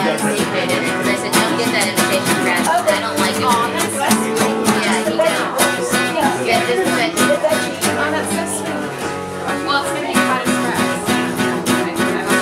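Steel-string acoustic guitar being played, strummed chords with ringing held notes in a steady rhythm.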